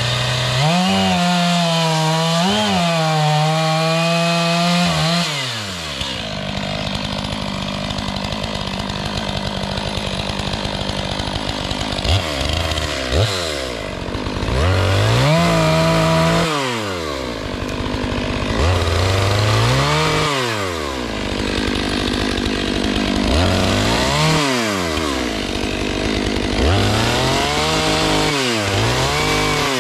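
Two-stroke chainsaw held at high revs for about five seconds, then dropping back and blipped up and down several times, each rev rising and falling quickly.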